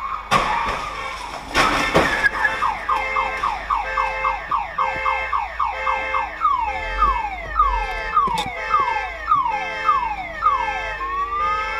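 A car collision: two loud crashes close together near the start, then a car alarm set off by the impact, cycling through fast chirps, then slower falling whoops about twice a second, and a rising tone near the end.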